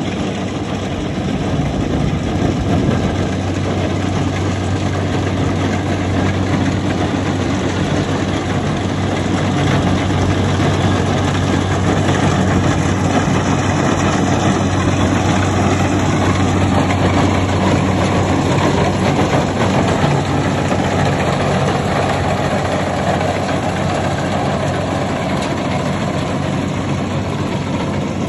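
Kubota combine harvester's diesel engine and machinery running steadily with a constant hum.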